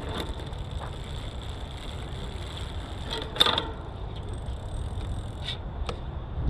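Drivetrain of a Litespeed titanium cyclocross bike running as the pedal is turned to check the rear derailleur's low limit screw adjustment. A steady chain whir is broken by a few sharp clicks, the loudest about three and a half seconds in.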